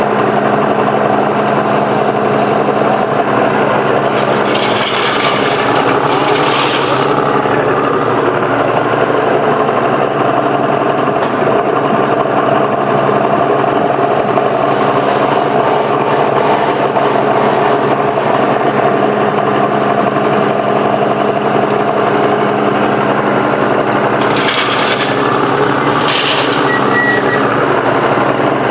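Komatsu PC200 excavator's diesel engine running steadily while it works. Twice, about five seconds in and again near the end, come a pair of short hissing bursts.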